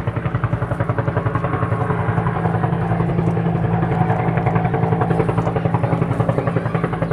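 A motor running steadily with a rapid, even throbbing.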